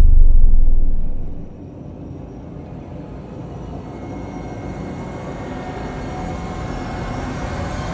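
Cinematic logo-sting sound design: a deep boom dies away over the first second and a half, then a low rumbling drone slowly swells.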